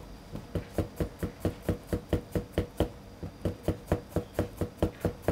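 Kitchen knife thinly slicing a bitter melon (goya) on a cutting board: a steady run of quick knocks of the blade on the board, about five a second.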